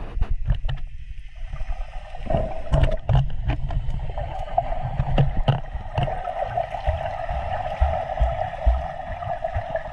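Water sloshing and gurgling around a camera held while snorkelling, with many knocks and low thumps. A steady mid-pitched hum comes in about a second and a half in.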